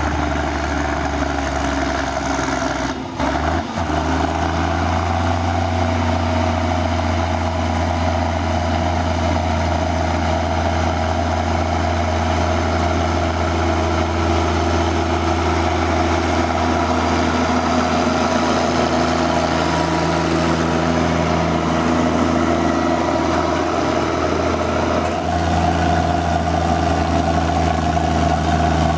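Schlüter 1250 tractor's diesel engine pulling heavy loaded trailers up a grade, a steady, even drone. About three seconds in it dips briefly, and near the end the engine note changes as the sound shifts to the cab.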